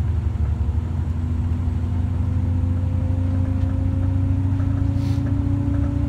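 Cabin noise inside a moving bus: a steady low engine and road rumble, with a whine that rises slowly in pitch as the bus gathers speed.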